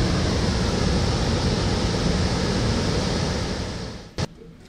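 EH200 electric locomotive and its train passing close by: a loud, steady rumble and rush of wheels on rail that fades out about four seconds in. A short sharp click follows.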